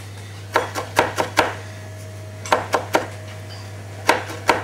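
Kitchen knife chopping a bunched ball of fresh parsley on a chopping board: sharp knocks of the blade striking the board in quick runs of three or four, about ten in all, at the rough-chop stage before the leaves are even in size.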